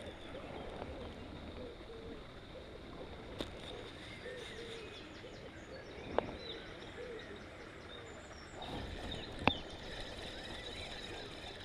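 Open-air background with small birds chirping, and three sharp clicks spread through it, the last and loudest near the end, while a spinning reel and line are handled.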